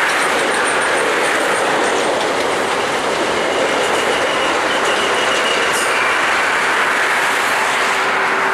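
Rear autorack cars of an Amtrak Auto Train rolling past on steel rails: a steady running noise from the wheels, with a faint high wheel squeal midway. Steady multi-lane highway traffic runs underneath.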